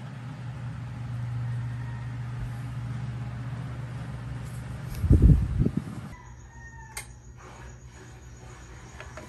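Rooster crowing faintly in the background over a steady low hum. About five seconds in there is a cluster of thumps and rustling from a blanket being shaken out and folded, and after that a single click.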